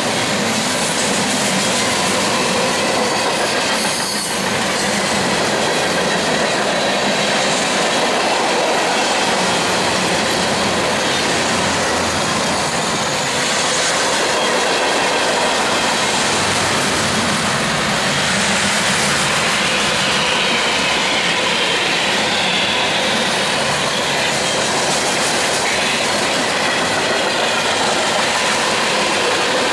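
Freight train cars rolling past close by, their wheels running steadily and loudly on the rails without a break.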